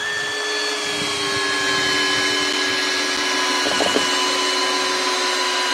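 Two 12V cordless drill-drivers, a Makita and a HILTI, running together in low gear (speed 1) while driving long screws into a log. Their steady motor and gearbox whine sags slightly in pitch as the load builds, with a short crackle about four seconds in.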